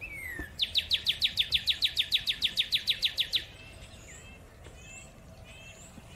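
A small songbird's loud, rapid trill of downward-slurred notes, about eight a second, lasting about three seconds. After it stops, fainter high chirps and twitters of small birds continue.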